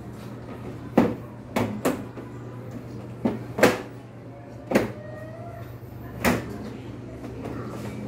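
Plastic casing panels of a portable air conditioner being pressed and knocked back into place by hand: about seven sharp clicks and knocks, spread irregularly through the first six or so seconds.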